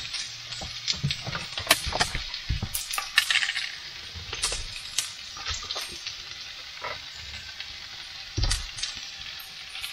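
Potatoes, bacon and onions frying in a pan with a steady sizzle. Scattered clicks and knocks of handling run through it, with a heavier thump near the end.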